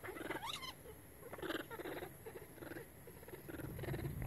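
Baby long-tailed macaques squeaking and crying: a rising-and-falling squeal about half a second in, then a string of short cries, two or three a second.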